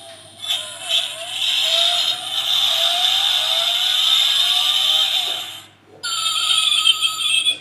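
Sound chip in a 1:32 diecast Toyota Land Cruiser 300 model playing a recorded engine rev through its tiny speaker, tinny with no bass and rising in pitch again and again. It breaks off briefly near six seconds and a second, steadier electronic sound clip follows.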